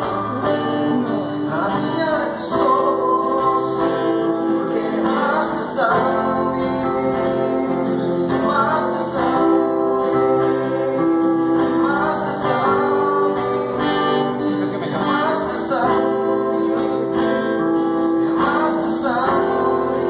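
Two acoustic guitars played together in a live duet, picked and strummed, with a singing voice carrying long held notes over them.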